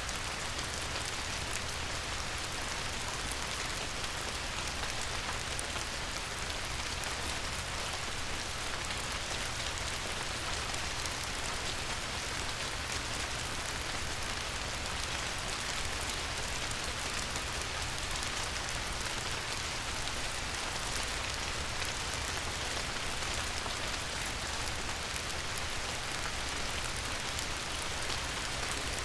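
Light rain falling steadily on a river, a constant hiss of small drops with fine pattering on the water.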